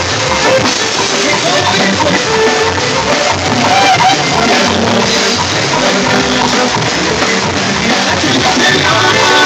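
Live band music played loudly: a drum kit beat with keyboard and saxophone, and a singer on the microphone.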